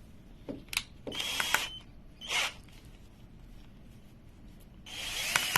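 A steel wire being clamped in a cordless drill's keyless chuck: a couple of sharp clicks, then several short whirring bursts as the chuck is tightened, the longest near the end.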